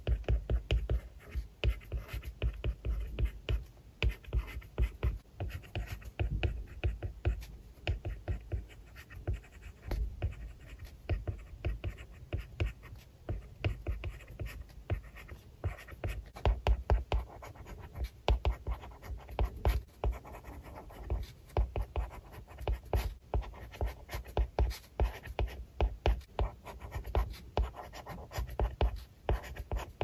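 Plastic stylus tip tapping and scratching across a tablet's glass screen while handwriting, a dense, irregular run of quick clicks and short strokes.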